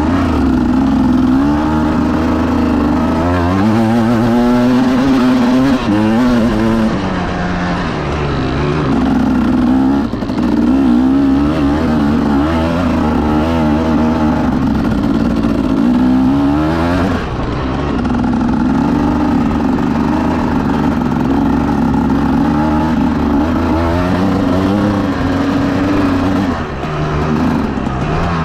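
Vehicle engine driven through the low gears, its pitch climbing as it accelerates and dropping back at each shift several times over.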